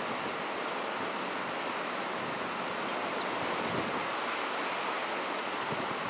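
Surf: small waves breaking and washing up a sandy beach in a steady rush.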